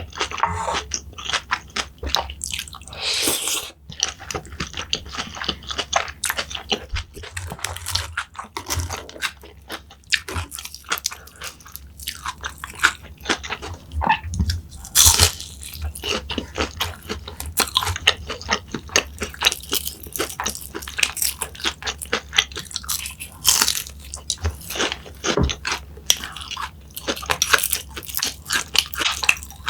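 Close-miked eating: a person biting into and chewing crunchy food, with dense, rapid crunches throughout.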